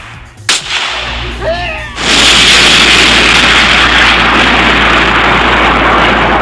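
Fire sound effect for a minifigure set alight: a sharp crack, a short cry, then a loud, steady rush of burning flames from about two seconds in.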